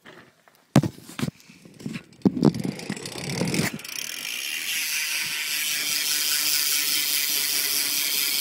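A few knocks and rattles, then from about halfway a BMX bike's stock rear hub freewheeling as the back wheel is spun, its pawls ticking so fast they blur into a steady high-pitched buzz.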